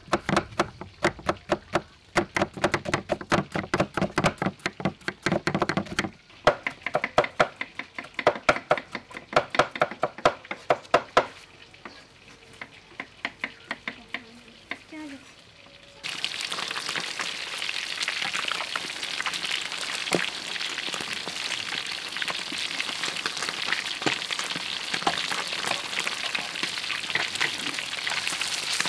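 A knife slicing shallots on a round wooden chopping block, about four quick strokes a second, with a short pause near six seconds, and the chopping stops at about eleven seconds. About sixteen seconds in, a steady sizzle begins: pieces of swordfish deep-frying in hot oil in a wok.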